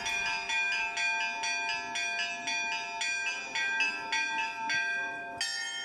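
Church bells ringing in a quick peal, the smaller bells struck about three times a second over the lingering ring of lower bells. The ringing cuts off abruptly near the end.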